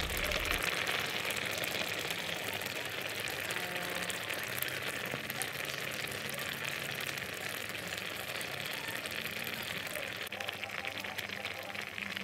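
Pineapple chunks simmering in sugar syrup in a pan: a steady bubbling hiss with fine crackles as the syrup cooks down.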